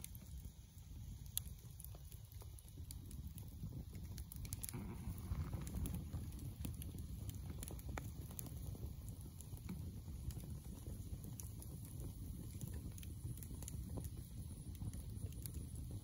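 Campfire of sticks and pine needles crackling, with scattered sharp pops over a low steady rumble; one louder pop comes about a second and a half in.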